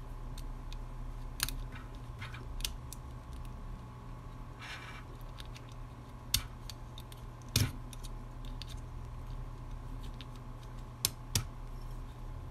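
Irregular sharp clicks and a brief scrape of a small tool prying at the button-cell batteries in a plastic keychain flashlight's battery holder, with the attached keys clinking now and then. The loudest click comes about halfway through, over a steady low hum.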